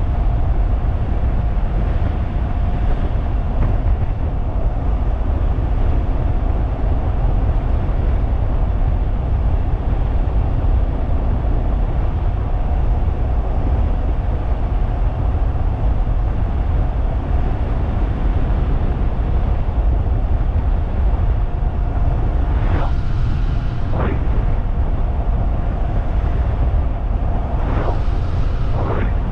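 Wind rushing over the microphone of a 3000-watt DIY electric bike ridden at high speed, with a steady thin whine from its motor. Two brief sweeping whooshes come near the end.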